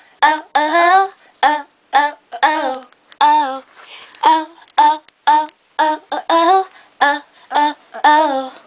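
A girl's voice singing a tune on wordless syllables in short, pitched notes, about two a second, some of them gliding up or down.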